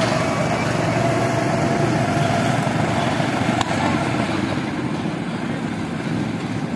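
Several small go-kart engines running as the karts lap the track, a steady mix of engine noise with one whining tone that fades out about two seconds in. A brief sharp click about three and a half seconds in.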